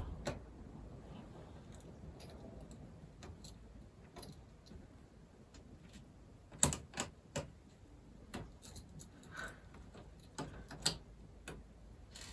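Scattered light clicks and clinks of small tools, screws and plastic laptop parts being handled during disassembly, with a quick cluster of sharper clicks about halfway through and a few more near the end.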